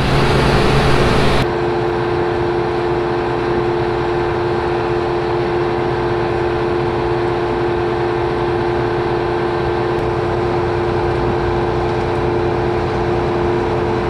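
John Deere combine's diesel engine running steadily close by, with a steady whining hum over it; the first second and a half is louder and rougher before the sound changes abruptly.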